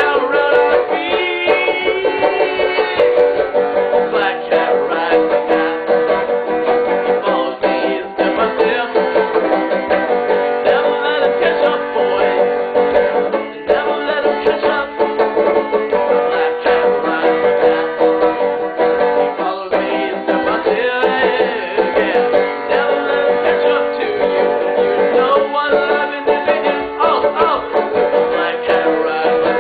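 Banjo being picked in a quick, continuous run of notes.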